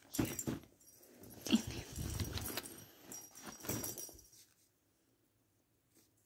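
Red fabric pop-up cat tunnel rustling and crinkling as it is handled and pushed about on the carpet, with a few soft bumps; the rustling stops about four and a half seconds in.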